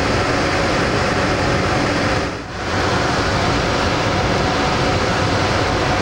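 Steady rushing air noise from a fan or air-handling unit running, which dips briefly about halfway through and then comes back.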